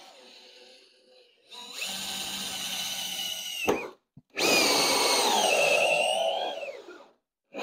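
Cordless drill driving a hole saw through a golf cart's plastic rear body panel, cutting the tail light hole. It runs in two loud bursts with a short stop about four seconds in, the second burst louder, its pitch sagging under load before it cuts off about seven seconds in.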